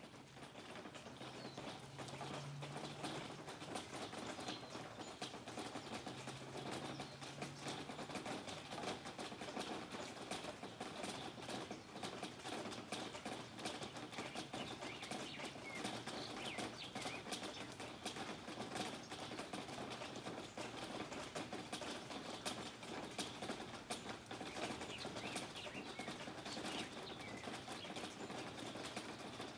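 Steady heavy rain falling, with many close drops pattering and dripping on surfaces. It grows louder over the first couple of seconds, then stays even.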